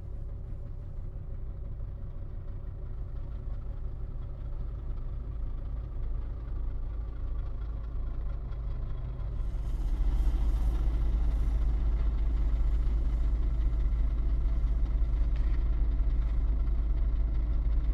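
Diesel bus engines running at low speed as a double-decker bus and then a coach drive slowly past; the engine sound becomes louder and fuller about ten seconds in.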